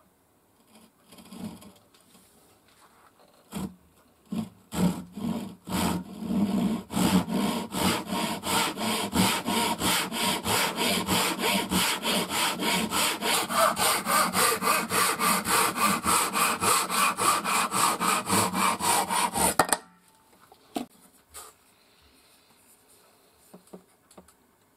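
Japanese pull saw crosscutting a wooden board in a sawing guide: a few separate starting strokes, then a steady run of quick, even strokes that stops abruptly just before twenty seconds in.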